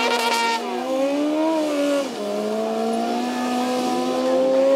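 Several sport motorcycle engines running at once: one holds a steady idle while others rev up and down, with a sharp rev right at the start.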